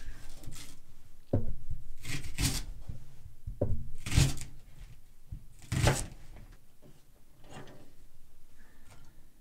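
Kitchen knife slicing through a Japanese long onion (negi) on a cutting board: several separate crisp cuts, some ending in a knock on the board, spread over about six seconds, with only faint handling sounds after that.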